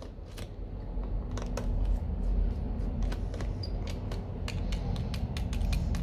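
Small precision screwdriver taking the screws out of a smartphone's plastic midframe cover: irregular small clicks and ticks of the bit turning in the screws and of screws being set down, over a low steady rumble.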